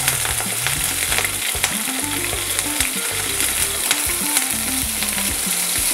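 Chopped garlic and green chillies frying in hot mustard oil with fenugreek seeds in a kadai, the tadka stage: a steady sizzle with scattered sharp crackles, while a wooden spatula stirs them.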